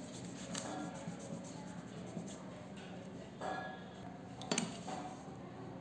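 Faint clicks, light knocks and rubbing of drawing instruments being handled and moved while angled lines are drawn. The sharpest clicks come about three and a half and four and a half seconds in.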